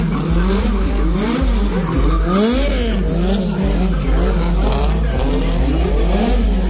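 Drift cars' engines revving hard, the pitch swinging up and down over and over as the drivers work the throttle, with tyres squealing and skidding on the asphalt.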